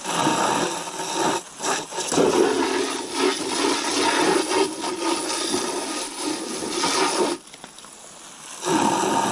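Garden hose spraying into a water container to rinse it out: a steady rush of water striking the container. It stops about seven seconds in and starts again about a second later.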